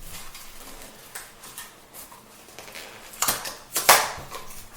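Handling noise of a cardboard boxed-wine carton being opened: scattered scrapes and rustles of cardboard, with two louder sharp knocks about three and four seconds in.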